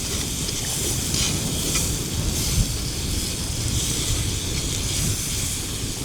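Snails sizzling in a pan of hot oil and flour roux: a steady hiss, with a low rumble underneath.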